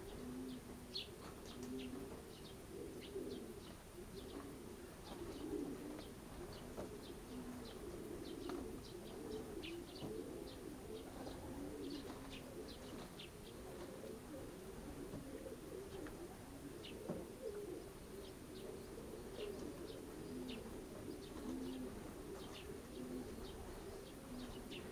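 Racing pigeons cooing without a break, many coos overlapping, with short high chirps of small birds scattered throughout.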